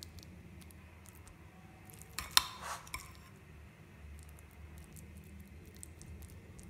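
A steel spoon clinks sharply a few times in quick succession against a glass bowl a little over two seconds in, amid faint taps and scrapes of the spoon spreading chicken filling on bread.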